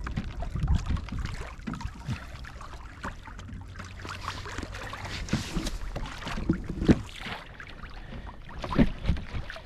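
Tidal current rushing and lapping against the hull of a sit-on fishing kayak as the tide takes the bow-anchored line and swings the kayak round. Wind rumbles on the microphone, with occasional knocks, the loudest about seven and nine seconds in.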